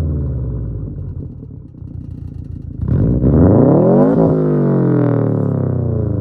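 Subaru STI's engine through a Tomei Expreme Ti titanium catback exhaust, driving. The revs fall away at first, then about three seconds in the car accelerates hard with rising pitch, breaks off sharply just past four seconds, and the revs drop again.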